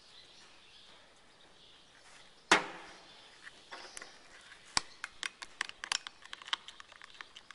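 A single sharp knock about two and a half seconds in, then quick, light clinks as a utensil stirs liquid soft plastic in a glass measuring cup.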